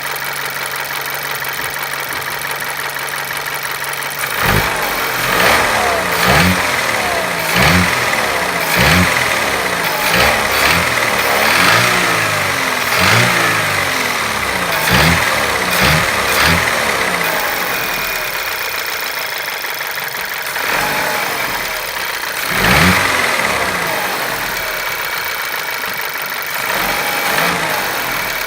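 Audi A4 B8's 1.8 TFSI (CDHA) turbocharged four-cylinder petrol engine idling, then blipped repeatedly about once a second, the revs rising and falling back, with one more blip later on. It is run to show a strange engine knock that the owner can't explain.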